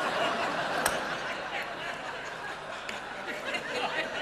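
Theatre audience laughing steadily, with one sharp click about a second in.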